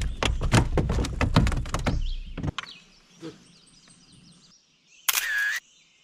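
Hooked smallmouth bass thrashing as it is landed on a kayak: a rapid run of knocks and splashes for about two and a half seconds, then a short noisy burst about five seconds in. Birds chirp faintly throughout.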